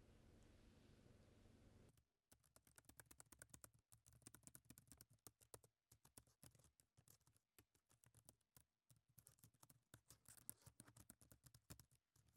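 Typing on a laptop keyboard: quick runs of key clicks broken by short pauses, starting about two seconds in. Before the typing there is only a faint, steady low hum.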